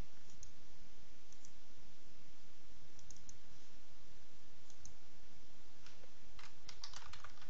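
Computer mouse clicks, several in close pairs like double-clicks, over a steady low hiss. Near the end comes a quicker run of clicks.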